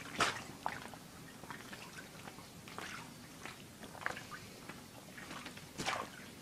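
A cat digging and pawing at a soft blanket: irregular scratchy rustles of claws and paws on fabric, louder once just after the start and again near the end.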